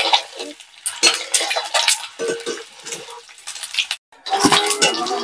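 Perforated steel slotted spoon scraping and clinking against a steel kadhai as whole boiled eggs are turned in hot oil, with the oil sizzling. The sound cuts out for a moment about four seconds in.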